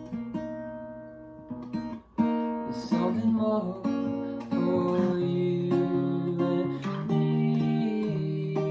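Instrumental music: strummed acoustic guitar chords. The first chord dies away to a brief gap about two seconds in, then a loud new strum sets off a run of steady chord changes.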